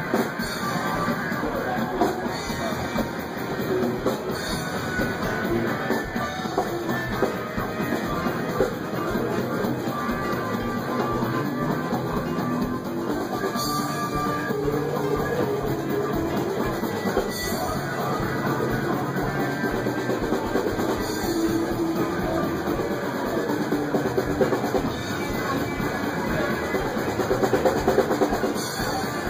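Rock music playing continuously, with drum kit and guitar.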